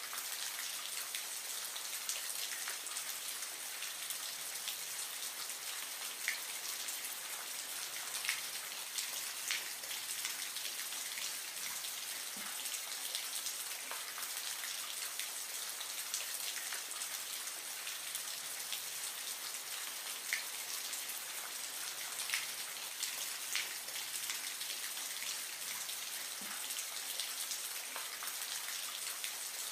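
Steady hiss of trickling or splashing water, with small drips and plinks scattered irregularly through it.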